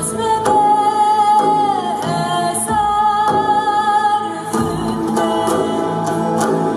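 Music with a singer holding long notes over instrumental accompaniment; one held note slides down about two seconds in.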